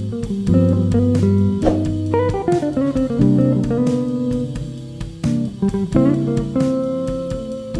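Background guitar music: plucked guitar notes over a low bass line.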